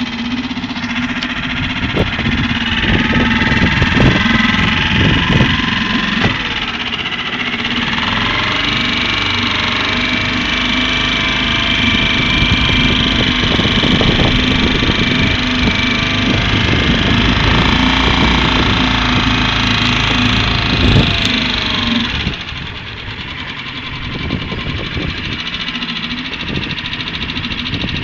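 Mercury 3.5 hp four-stroke outboard motor running under way. Its speed rises a couple of seconds in and wavers, then it drops back to a quieter, lower speed about 22 seconds in.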